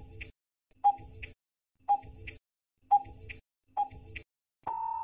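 Quiz countdown-timer sound effect: five ticks about a second apart, then a longer steady beep near the end as the time runs out.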